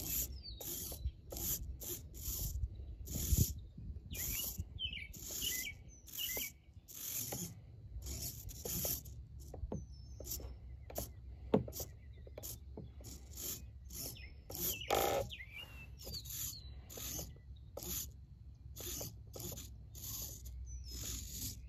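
Small RC servos in the paraglider pilot figure moving its arms up and down, heard as short, whirring bursts repeated about one and a half times a second. Birds chirp now and then behind it.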